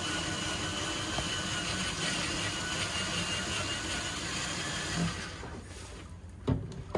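Power drill running steadily with a thin motor whine as it bores a hole for the outlet, winding down about five and a half seconds in; a few faint knocks follow.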